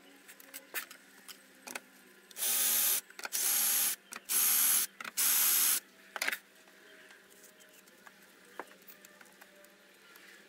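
Four short blasts of pressurised spray hissing from a nozzle, each about half a second long and about a second apart, with light clicks and taps of handling before and after.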